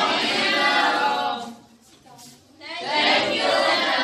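Many young voices speaking together in drawn-out unison: two long phrases, like a class greeting a teacher in chorus, cut off sharply at the end.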